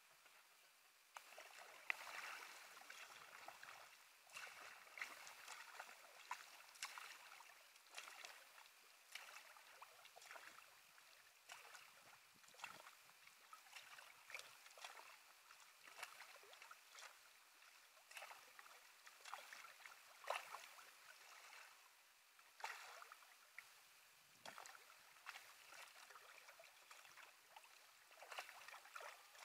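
Kayak paddle blades dipping into calm water in a steady rhythm of about one stroke a second, each with a faint splash and drip, starting about a second in.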